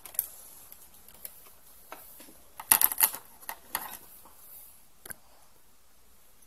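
Scattered light clicks and plastic crackles from handling scissors and a soft plastic chocolate-pen tube before snipping its tip, with a louder cluster of clicks about three seconds in.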